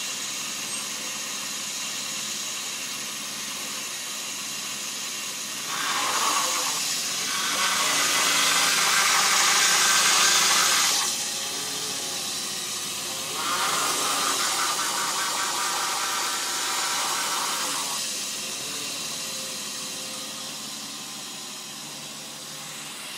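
BMW E34 engine running, with two louder stretches of rushing noise of about five seconds each, the first about six seconds in and the second about thirteen seconds in.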